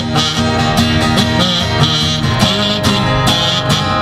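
Acoustic guitars strumming a country-style tune in a steady rhythm, played live without singing.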